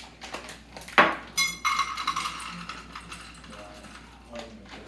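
Chocolate chips being poured from their plastic bag into a metal measuring cup: a sharp clink about a second in, then about two seconds of rattling clatter that fades off.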